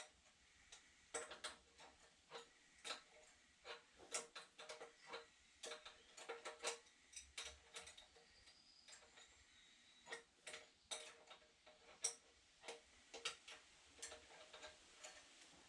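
Faint, irregular metallic clicks and taps of a hand tool on an engine fitting, about one or two a second, some with a short ring, as a bolt with copper washers is tightened by hand.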